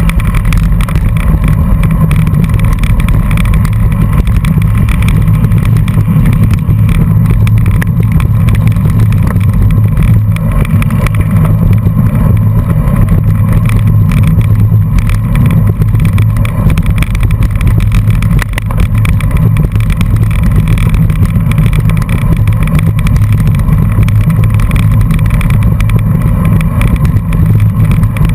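Wind buffeting and road rumble on a bicycle-mounted camera's microphone while riding in a race pack on a dirt road: a loud, steady low rumble.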